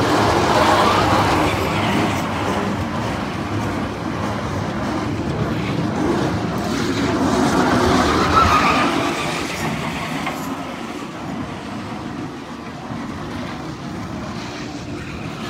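Kiddie dragon-train ride rolling along its track, a steady rumble and rattle that swells as the train passes close, near the start and again about eight seconds in.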